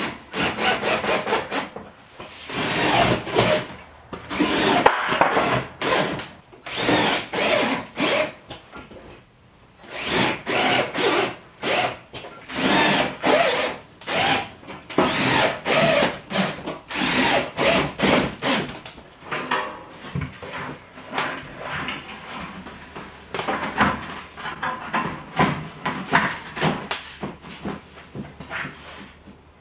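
Cordless drill driving screws through ribbed tin wall panels into the wood framing behind, in many short bursts with brief pauses between.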